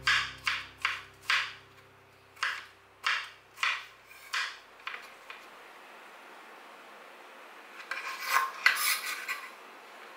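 Kitchen knife slicing cucumber into thin strips on a cutting board: a series of crisp cuts, about eight in the first four and a half seconds. Near the end comes a short flurry of scraping and rustling.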